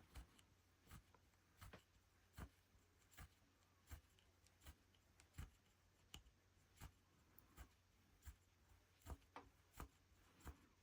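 Rug hook working wool strips through the backing, pulling up loops: faint, regular soft taps about one every three-quarters of a second.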